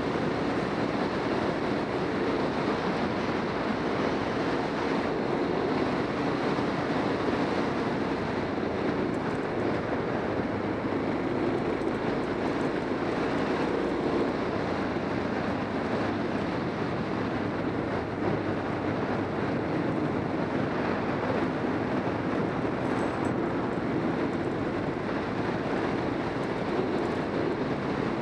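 Motorcycle engine running at a steady cruise, its drone mixed with wind rush on the microphone, holding an even level with no revving or gear changes.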